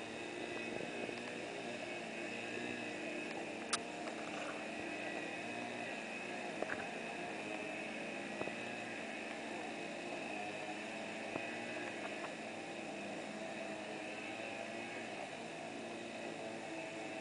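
A steady motor hum with several level tones, broken by a few short sharp clicks, the sharpest about four seconds in.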